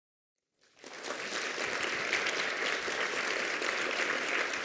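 Audience applauding, starting out of silence about half a second in and holding steady.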